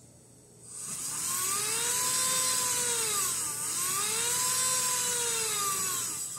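Synthesized locomotive engine sound from an MRC Sound and Power 7000 sound unit, played through its loudspeaker: a buzzing tone whose pitch climbs and sinks twice as the throttle knob is turned.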